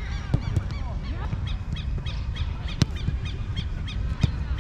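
Birds calling in short arched chirps, with a run of about four a second a couple of seconds in, over a steady low rumble. A few sharp thuds of a football being kicked, the loudest near the middle.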